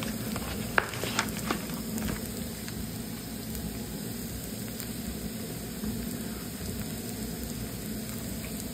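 Chopped onions, garlic, ginger and green chillies sizzling steadily in hot oil in a frying pan, browning with the spice masala. A few sharp taps sound about a second in.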